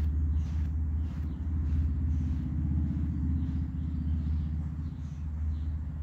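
Low rumble of an engine running out of view, steady with a fast, even pulse.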